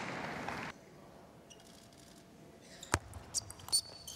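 Table tennis ball being played in a quiet hall: a sharp click about three seconds in, then a few lighter clicks and a short high squeak near the end. Crowd noise fills the first moment and cuts off abruptly.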